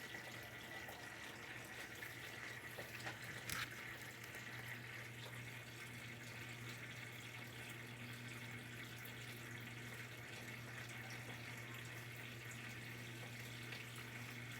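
Brastemp BWK 11 top-loading washing machine filling, water pouring steadily into the tub, with a constant low hum under it and one knock about three and a half seconds in.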